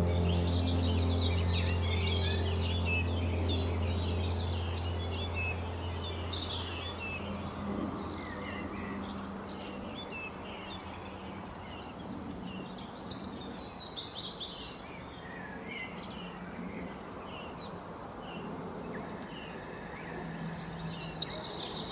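A mixed chorus of small birds chirping and trilling in forest ambience, with a low held music tone fading out over the first several seconds. A steady high hum, like a calling insect, joins near the end.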